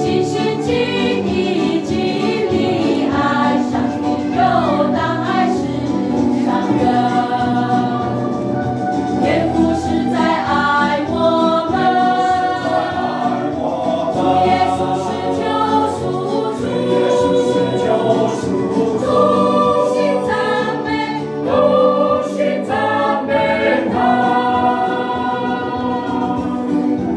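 A small church choir singing a hymn in Akha, several voices together in sustained phrases over steady low accompanying notes.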